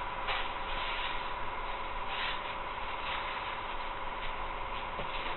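Hands rubbing and pressing a strip of fan fold foam into a mold: irregular soft scuffs, over a steady hiss with a faint high hum.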